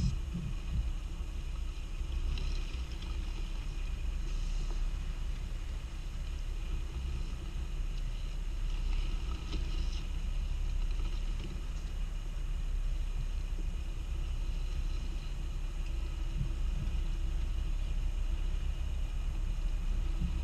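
Scania R520 timber truck's V8 diesel engine running with a steady low rumble as the truck reverses slowly, with a brief knock at the very start.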